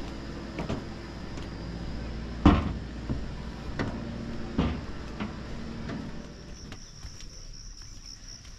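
Train wheels rumbling along the track, with irregular sharp clacks as they cross rail joints; the loudest clack comes about two and a half seconds in. Near the end the rumble fades out and a steady high buzz of insects takes over.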